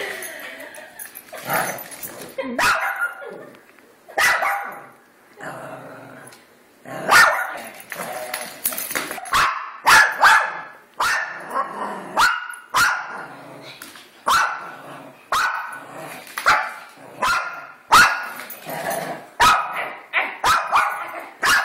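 Small dog barking repeatedly at a wind-up toy dog, alarmed by it. The barks are sparse at first, then come in a steady run of about one a second.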